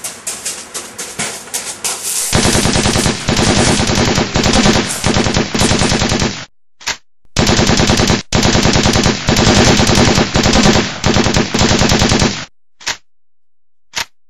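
Dubbed-in machine-gun sound effect. It fires rapid automatic bursts starting about two seconds in, with a few short breaks, then a couple of single shots near the end.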